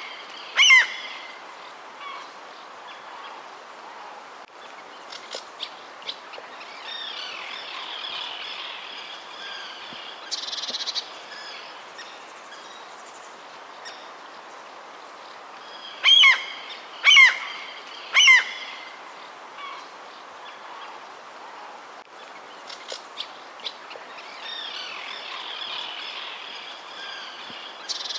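Wild birds calling: a group of three loud calls about a second apart, each falling in pitch, past the middle, with softer scattered chirps over a steady background hiss.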